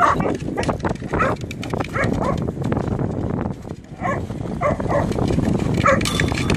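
Two whippets barking and yipping in play as they fight over a ball, a string of short sharp calls with a brief lull a little past the middle.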